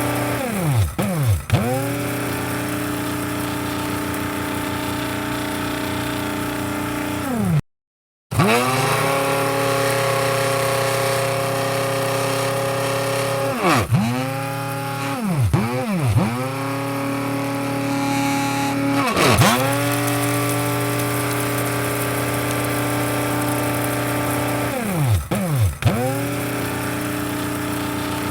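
Electric coffee grinder's motor running with a steady whine, its pitch dipping sharply and springing back up several times: about a second in, near 14 and 16 s, around 19 s, and twice near 25 s. The sound cuts out completely for about half a second near 8 s.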